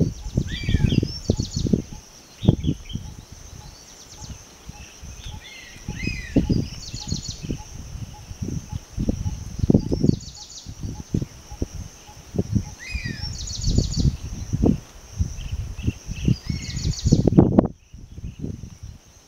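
Forest ambience: a steady high-pitched insect drone, with a bird calling over and over in short chirping phrases every couple of seconds. Loud, irregular low buffeting on the microphone runs underneath and is the loudest sound.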